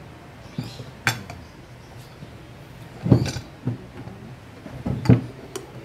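Metal clicks and knocks of rack-and-pinion steering gear parts being handled and fitted together as the pinion is turned into the housing with the rack. Scattered single knocks, the loudest about three and five seconds in.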